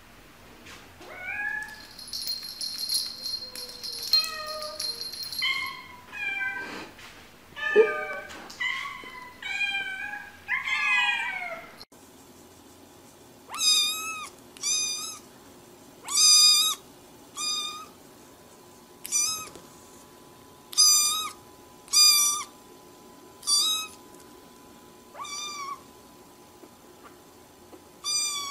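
Cats meowing with varied calls that slide up and down in pitch. Then a kitten gives a run of short, high meows, about one a second.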